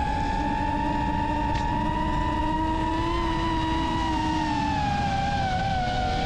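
DJI FPV drone's motors and propellers whining in flight, the pitch held steady and drifting slowly up and then down, over a rush of wind noise.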